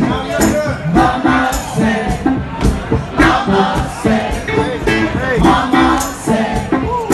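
Live band playing a song: a male lead singer sings into a microphone over a steady drum beat.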